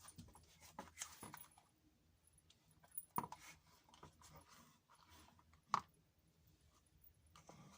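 Near silence with scattered faint clicks and rustles, and two sharper clicks, about three seconds in and just before six seconds.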